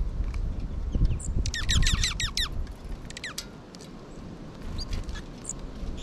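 A small songbird calling: a quick run of about seven sharp, down-slurred notes a second or two in, then two more, with a few short high chips. Gusting wind rumbles on the microphone throughout.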